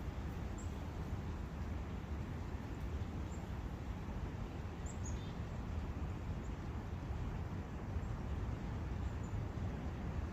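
Steady rushing of wind and a brook in a forest, with a few short, high bird chirps scattered through.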